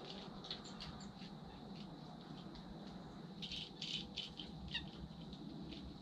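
Small bird, a white-breasted nuthatch, pecking and rattling seed in a hanging feeder's tray: faint, scattered light taps, with a quick cluster about three and a half seconds in.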